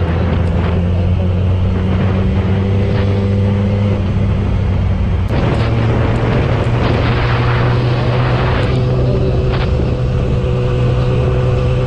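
Motorcycle engine running at a steady speed, its pitch shifting about five seconds in, with a few seconds of rushing wind-like noise after the shift.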